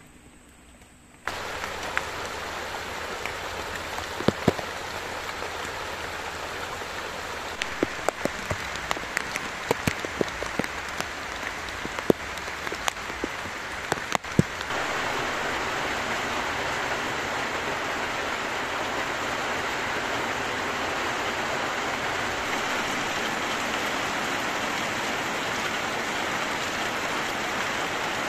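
Heavy tropical rain falling, starting about a second in, with scattered sharp drips landing close by. About halfway through it gives way to a denser, louder, steady downpour.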